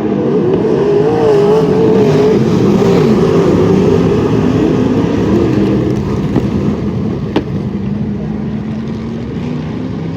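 Wingless sprint cars racing, several engines at once, their pitch weaving up and down as they speed up and back off. There is one sharp click about seven seconds in.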